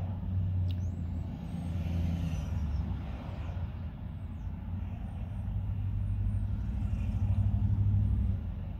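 Cat purring close up: a steady low rumble that swells in the last few seconds and then eases off.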